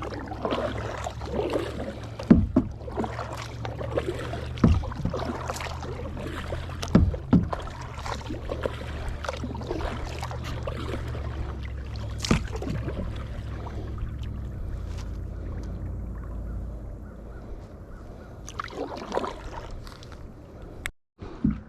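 Kayak paddling: paddle strokes splashing through the water, with several sharp knocks scattered through and a low steady rumble that fades out after about fifteen seconds.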